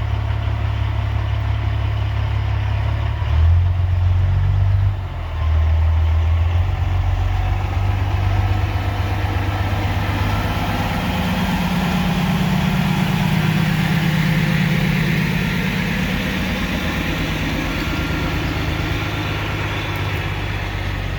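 Vehicle engine running steadily on the road while towing a heavy load. Its low drone grows louder about three seconds in and eases off a few seconds later, then a higher drone rises and falls away midway.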